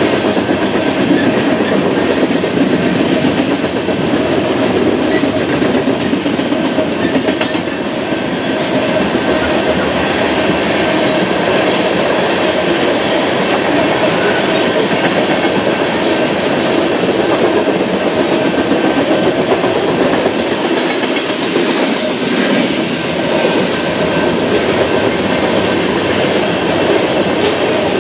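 Steel wheels of BNSF coal hopper cars clicking steadily over the rail joints as a long unit train rolls past at speed.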